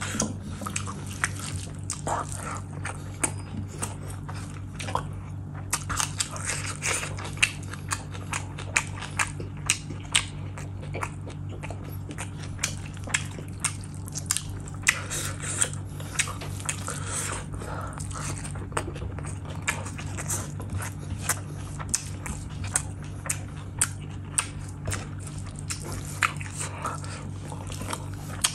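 Close-miked eating of mutton curry and rice by hand: wet chewing and lip smacks, with many small irregular clicks.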